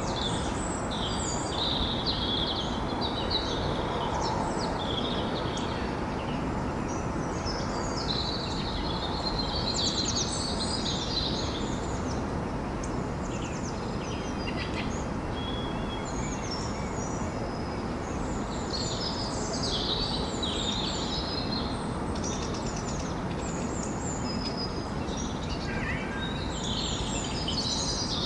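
Morning birdsong: bouts of high chirping and trilled phrases come and go, over a steady low city hum.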